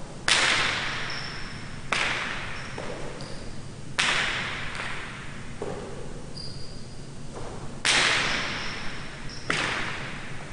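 Jai alai pelota striking the court walls during a rally: five loud, sharp cracks, one every one and a half to four seconds, each echoing off the hard walls, with a couple of softer knocks between them.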